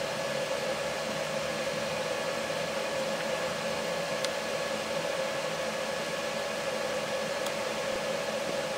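Steady hiss with a faint constant hum, the recording's background noise, with two faint small clicks about four and seven and a half seconds in as the wireless card is handled.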